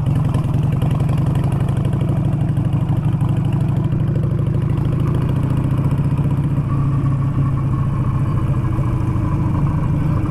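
Harley-Davidson V-twin motorcycle engine running at a low, steady pace while the bike rolls slowly over a rough dirt track, heard from the rider's seat.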